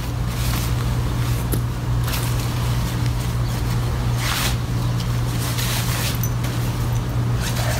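A nylon backpack being opened and a packed one-man tent pulled out in its stuff sack: several brief rustles and scrapes of fabric, one about two seconds in and a longer one a little past four seconds. Under them runs a steady low hum.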